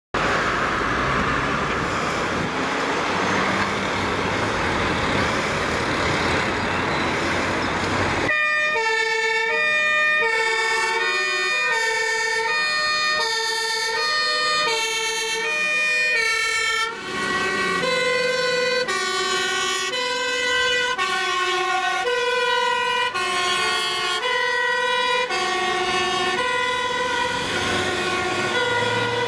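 A Dutch fire engine's two-tone siren alternating between a high and a low note about once a second, starting about eight seconds in after a loud rushing noise. About halfway through, a second set of alternating tones overlaps it.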